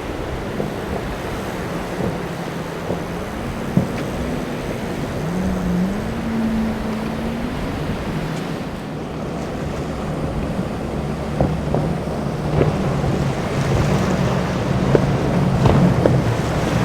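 Boat engine running through rough inlet waves, its pitch rising as the throttle is opened about five seconds in, over a steady rush of surf and wind on the microphone, with a few sharp knocks near the end.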